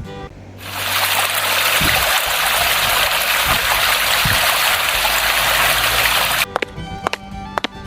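A steady rush of running water, starting about half a second in and cutting off suddenly near the end.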